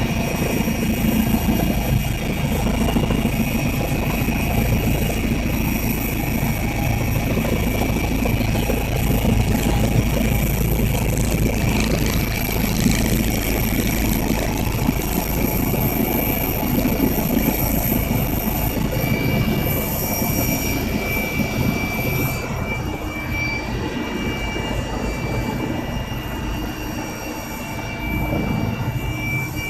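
Helicopter turbine engine and rotor running steadily, a continuous rumble with high steady whines; about 22 seconds in the highest hiss drops away while the engine keeps running.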